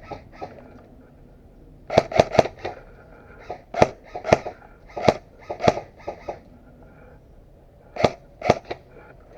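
Airsoft gun shots: a series of sharp single cracks fired in irregular quick clusters, then a pause of over a second before a last group of three near the end.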